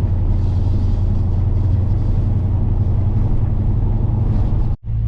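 Ford Gen 3 Coyote 5.0 V8 in a 1955 F100 running steadily at light cruise, a low even drone with road noise over it. The sound drops out briefly near the end and comes back at a slightly different pitch.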